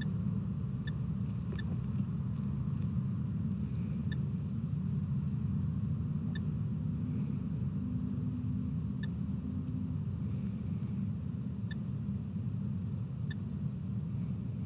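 Steady low rumble, with faint short high pips every one to three seconds.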